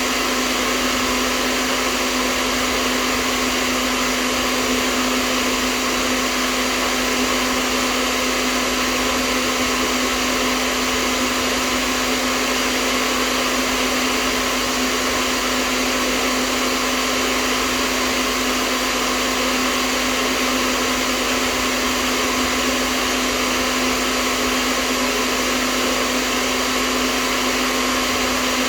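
Hair dryer running steadily: an even rush of blown air over a constant motor hum.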